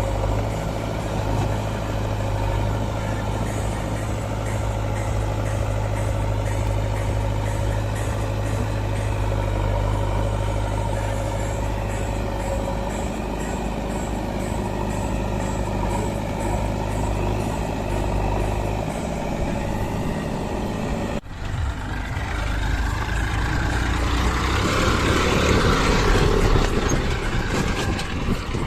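Heavy diesel engine running steadily. About two-thirds of the way through, the sound briefly drops out and gives way to a noisier engine sound that swells and then eases.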